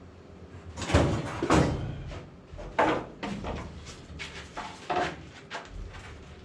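A series of irregular knocks and scrapes, with about four louder ones, over a faint low steady hum.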